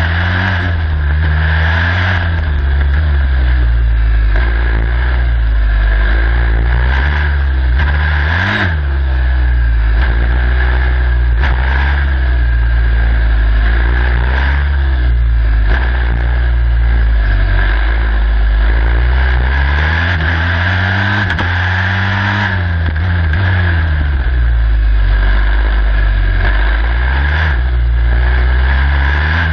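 Onboard sound of a turbocharged Formula SAE race car's engine under way, its pitch rising and falling again and again as the driver accelerates and lifts through tight corners in low gears. A steady high whine runs over the engine note throughout.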